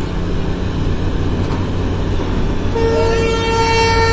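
A steady low engine rumble, then about three seconds in a long, steady single-note locomotive horn blast from an approaching train.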